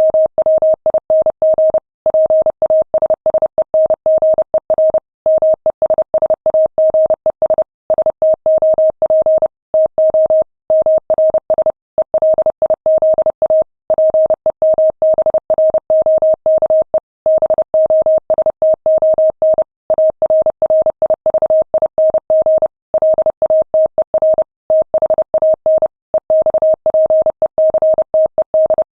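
Morse code sent at 30 words per minute: a single steady mid-pitched tone keyed on and off in rapid dots and dashes, with brief pauses between words.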